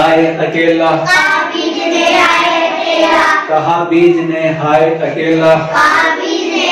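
A group of young children singing a Hindi poem together in unison.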